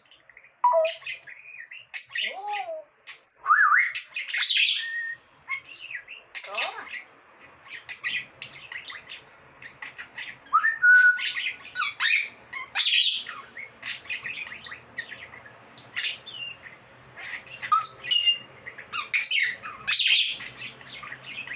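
Pet parrot squawking and chirping in a long string of short, loud calls, with a few whistled glides and one held whistle about halfway through.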